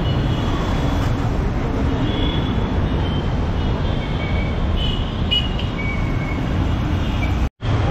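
Steady road traffic rumble, heavy in the low end, with a few faint short high tones over it. The sound cuts out completely for an instant near the end.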